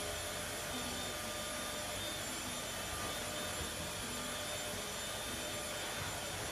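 Steady room noise: an even hiss with a few faint steady hum tones, and no distinct knocks or voices.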